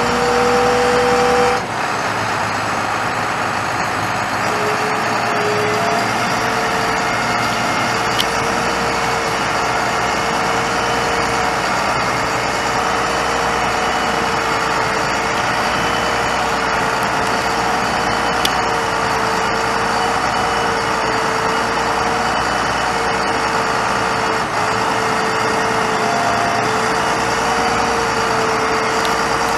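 International DT466 inline-six turbo diesel of a truck running steadily, with a steady whine over it; a different tone at the start cuts off after about a second and a half.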